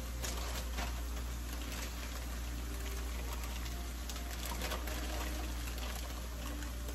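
Marinated chicken pieces and mixed vegetables sizzling and crackling in a hot skillet, over a steady low hum.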